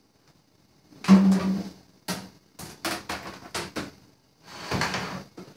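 Kitchen counter handling as wheat-gluten dough is taken out of a mixing bowl and put down on a cutting board: a loud thud about a second in, then a quick run of knocks and clatters, and a last thump near the end.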